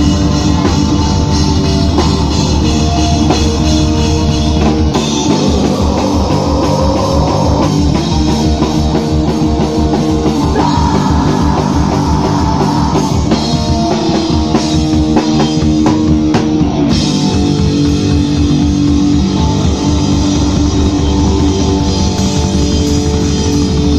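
A live rock band playing loud heavy rock on electric guitars and a drum kit. The pattern changes about five seconds in, with fast, even drumming from there on, and shifts again near seventeen seconds.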